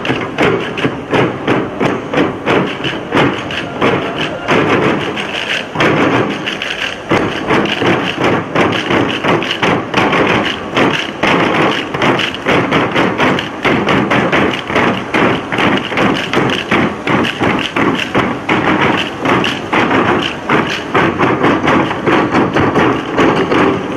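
Many dancers beating out a fast, even rhythm in unison with hand claps and slaps on their bodies, the body percussion of an Acehnese seated group dance, several strikes a second.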